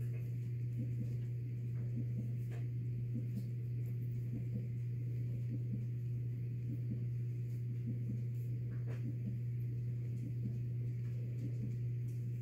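A steady low hum, with a few faint ticks now and then.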